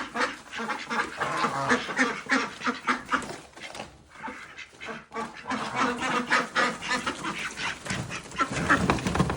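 A flock of ducks and geese quacking and honking in a rapid, overlapping chorus, with a brief lull about four seconds in.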